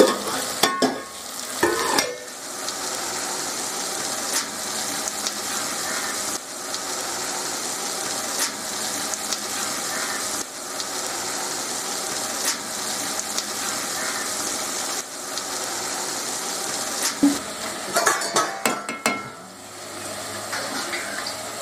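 Cooked mutton tipped into a hot metal pan of fried onions and tomatoes and stirred with a metal spatula: steady sizzling, with the spatula scraping and clicking against the pan. Clattering knocks of the pot and spatula come in the first couple of seconds and again near the end.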